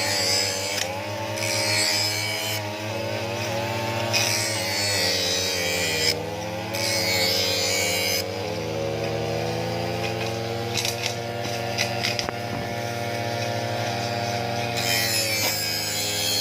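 Small two-stroke engine of a grass cutter running continuously, its pitch wavering up and down as the throttle changes. Intermittent hissing stretches come as it cuts through grass.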